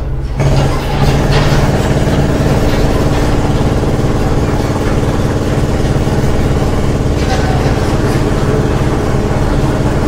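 Construction machinery engine running at a steady speed: a low, even drone with a few faint knocks over it.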